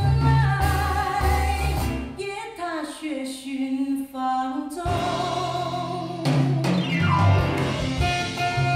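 Music with singing played back over Giussani Research Delta Butterfly One loudspeakers. The heavy bass drops out for a few seconds in the middle and comes back in.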